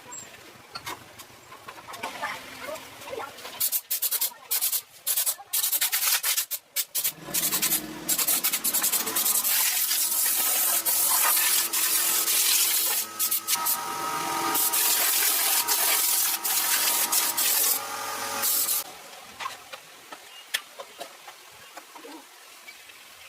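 Sanding: short rasping strokes at first, then a loud steady abrasive hiss for about ten seconds that stops near the end.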